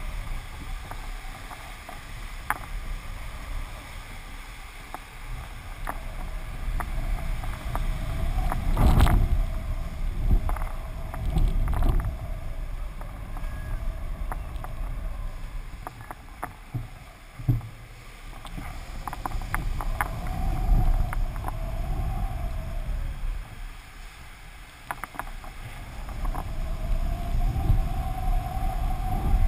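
Wind buffeting a camera mounted on a flying kitesurfing kite: a gusty low rumble that swells and fades, strongest about nine seconds in and again near the end. A faint wavering hum and scattered sharp ticks ride over it.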